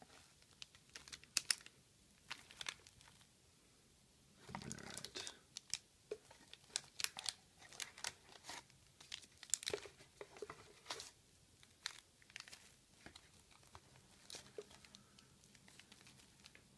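Wax-paper wrappers of 1985 Garbage Pail Kids trading card packs crinkling and rustling as the packs are handled and stacked, with many short clicks and taps. A longer, louder rustle comes about five seconds in.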